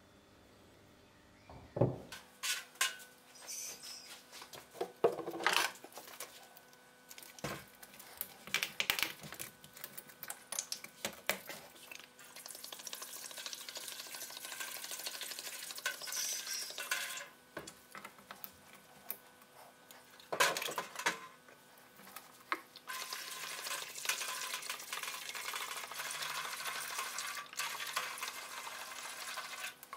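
Liquid rust remover poured from a plastic jug into a stainless steel tray over rusty steel parts, a steady splashing hiss that runs for several seconds, twice. Before the pouring, sharp metallic clinks and knocks against the tray.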